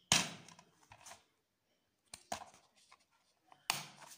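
Plastic DVD case being handled and opened: a sharp clack just after the start, lighter clicks around one and two seconds in, and another loud clack near the end.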